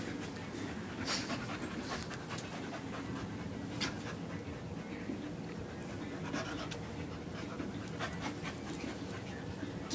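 A dog panting hard while at play, with a few light taps and scuffs from movement on the floor.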